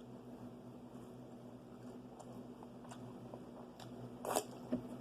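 Chewing of fried chicken wings and cheese fries close to the microphone, with small wet clicks and a louder crunchy bite about four seconds in. A faint steady hum runs underneath.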